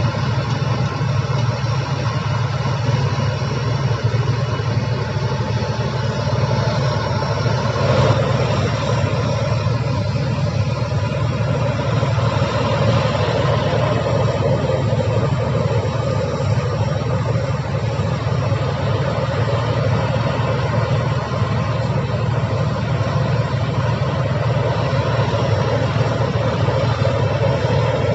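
Heavy diesel engine of a bulldozer or excavator running steadily.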